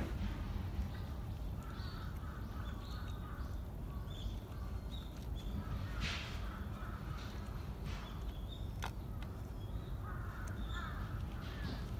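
A cat eating dry kibble from a plastic bowl, with a few short sharp crunches, while birds call repeatedly in short bursts in the background over a steady low outdoor rumble.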